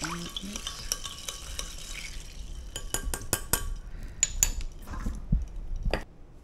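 Metal spoon stirring vinegar into cold water in a glass measuring cup, scraping and lightly clinking against the glass. About three seconds in it gives way to a run of sharp clicks and clinks of utensils against glass and the counter.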